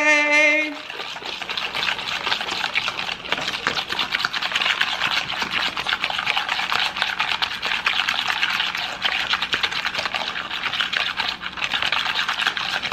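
Wire whisk beating an oil-based seasoning mix in a ceramic bowl: fast, continuous wet swishing with rapid ticks of the wires against the bowl, starting about a second in.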